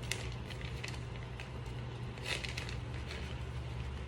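Pan of pasta and sauce cooking on the stove, with faint crackling and scattered light clicks as Parmesan is added and worked in, over a steady low hum.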